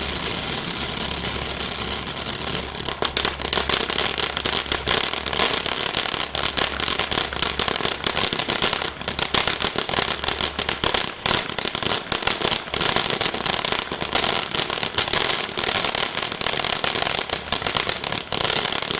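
Miracle M302 firework going off: a steady hissing spray for about three seconds, then dense rapid crackling that stops suddenly near the end. A low steady hum runs under the first half.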